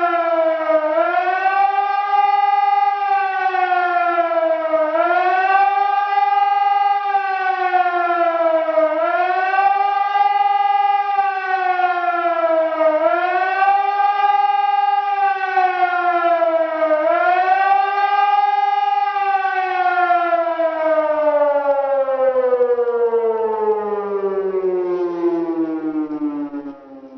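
EPS2400 electronic siren sounding the German "Warnung" signal, a wailing tone that rises quickly and falls again about every four seconds. About 19 seconds in the wail stops repeating and the pitch slides steadily down as the signal winds down, and it fades sharply near the end.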